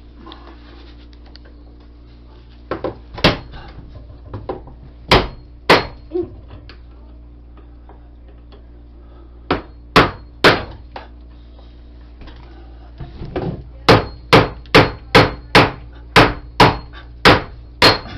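Door hinge pin being driven up with a screwdriver struck by a hammer: sharp knocks, a few scattered blows and then a quick run of about nine strikes at roughly two a second near the end.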